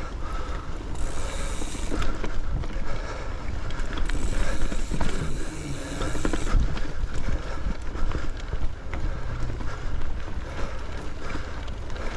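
Schwinn Axum mountain bike ridden over dirt singletrack: tyre noise and rattling knocks from the bike, with wind rumbling on the microphone. There are two stretches of brighter hiss, about a second in and again from about four to six and a half seconds.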